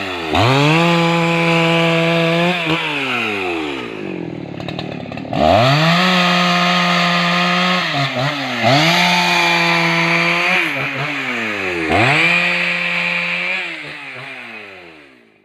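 Husqvarna 288 two-stroke chainsaw run at full throttle in four bursts of two to three seconds, dropping back toward idle in between, as it cuts rubber-tree wood; the engine winds down and fades out at the end.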